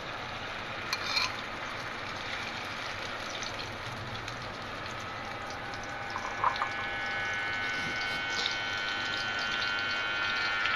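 Egg omelette batter with chopped onion, tomato and chilli sizzling in hot ghee in a frying pan, a steady hiss, with a couple of light clicks, near the start and about two thirds through. Faint steady high tones join in about halfway through.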